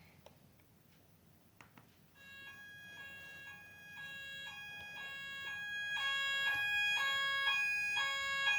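Near silence for about two seconds, then an electronic fire alarm starts up and grows steadily louder. It holds a steady high tone over a lower tone that switches back and forth between two pitches about every half second.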